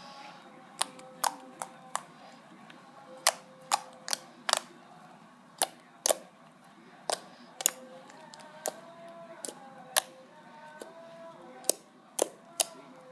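Slime being played with by hand, giving sharp, irregular clicking pops, about seventeen in all, spread unevenly with short gaps.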